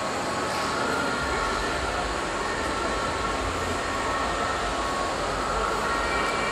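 Steady rumbling noise of a large indoor exhibition hangar, with a deeper low rumble coming in about a second in and faint steady whistling tones above it.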